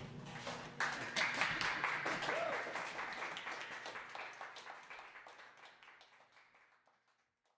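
The last notes of an upright piano ring out and die away, then an audience applauds, starting about a second in and fading out near the end.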